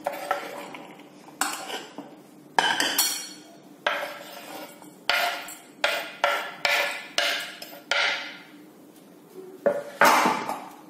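Kitchen dishes and spoons clinking and knocking together: about a dozen sharp, irregular clinks, several ringing briefly, with a quick cluster around the middle and two more near the end.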